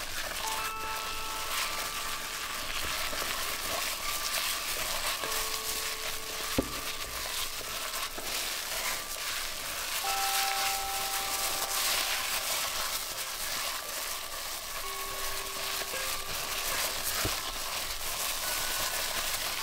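A plastic-gloved hand kneading and squishing a wet mixture of ground beef, chopped kale and egg in a stainless steel bowl: a steady wet, squishing noise, with one sharp tap about six and a half seconds in.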